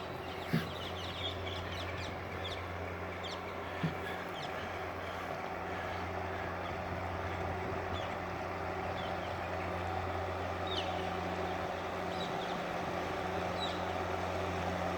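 Small push boat's engine running steadily with a low hum. Short bird chirps come over it now and then.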